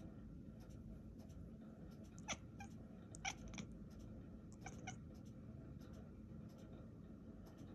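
House cat making a few very short, sharp chirps, singly and in quick pairs, spread over a few seconds above a low steady hum.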